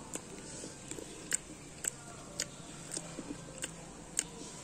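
Close-miked chewing of a mouthful of Cadbury Dairy Milk chocolate with nuts, with sharp wet mouth clicks about every half second.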